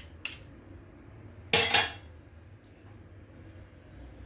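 Spoon clinking and scraping against a dish, twice: a brief clink near the start and a longer scrape about a second and a half in.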